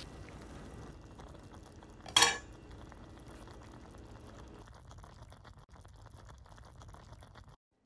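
Chopsticks stirring noodles in a metal pot, with one sharp clink against the pot about two seconds in, over the faint steady sound of the pot simmering on an aluminum can stove. The low simmering sound drops away about halfway through.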